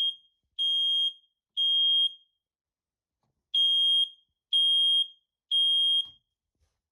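First Alert SA900 smoke detector's piezo sounder in alarm, set off by pressing its test button. It gives loud, high half-second beeps in the temporal-three pattern: three beeps about a second apart, a pause, then three more.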